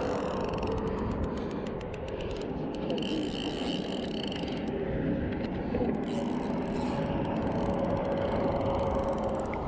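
Spinning fishing reel clicking in two runs of rapid ticks, over a steady rumble of road traffic.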